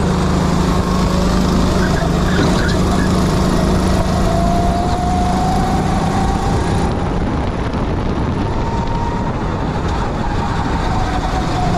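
Kart engine running hard on a track. Its pitch climbs slowly, drops back about seven seconds in, and picks up again near the end.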